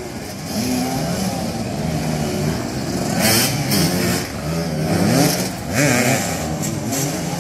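Several motoball motorcycles running at once, their engines revving up and down so that the pitches rise and fall over each other. A few short hissing bursts come through about halfway in and again near the end.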